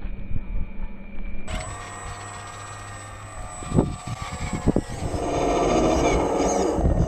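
Hydraulic pump of a scale-model Liebherr 946 RC excavator whining steadily as the machine works, growing louder with the pitch moving up and down about five seconds in as the arm moves. Two sharp knocks come near the middle. Wind rumbles on the microphone in the first second or so.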